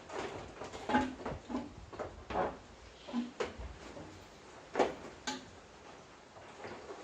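A string of short, irregular knocks and clacks, the loudest about five seconds in, then they stop.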